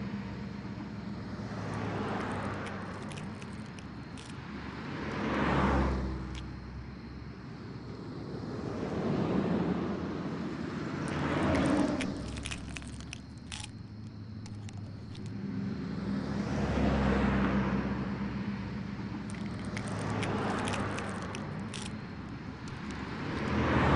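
Road traffic passing one car after another, each a rising and falling whoosh of tyre and engine noise, over a low steady hum. Faint small clicks come through now and then.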